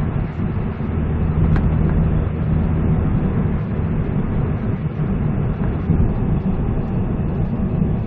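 Peugeot 207cc cruising, heard from inside the cabin: a steady low rumble of engine and road noise.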